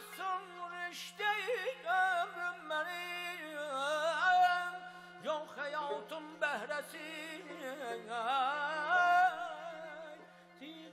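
A male mugham singer holding wordless, highly ornamented vocal lines in a high register. The voice glides and breaks into rapid quivering trills (tahrir), with short breaks for breath, over a faint steady low tone.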